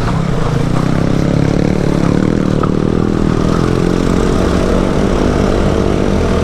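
Motorcycle engine running steadily at low revs while riding an off-road trail.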